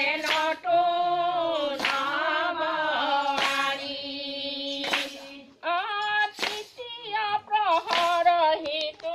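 Women singing an Assamese devotional naam without instruments, with hand claps about every second and a half marking the beat. The singing breaks off briefly a little past halfway, then the next line starts.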